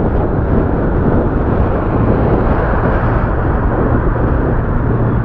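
Wind buffeting the microphone during a ride: a loud, steady rumble, with a low steady hum joining about two seconds in.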